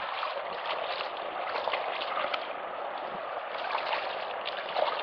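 River water running and trickling, a steady rushing hiss broken by many small splashes and gurgles.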